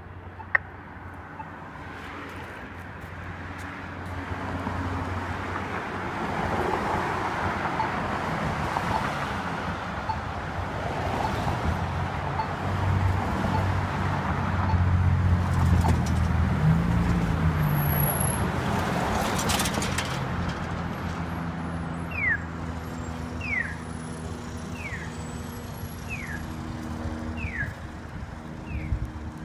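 An accessible pedestrian signal button gives a sharp click about half a second in, the louder click that confirms the button was held long enough to turn on the audio. Cars pass through the middle. Near the end the signal starts its walk tone, a short falling bird-chirp repeated about once every 1.3 seconds, the sound it makes for an east–west crossing.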